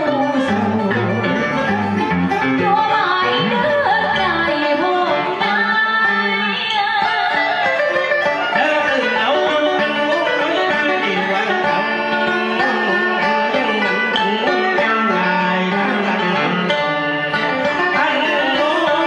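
Vietnamese cải lương-style duet excerpt: a man singing into a microphone over a plucked guitar accompaniment.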